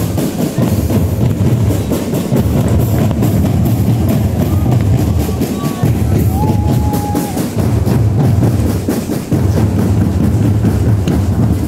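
Marching band drums playing a dense, continuous beat, led by heavy bass drums with other percussion over them.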